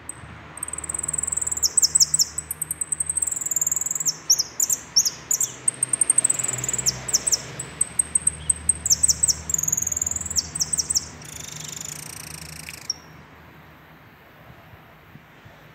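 Saffron finch singing its full song: a long run of high, rapid trills and held whistles that stops about two seconds before the end, over a low steady hum.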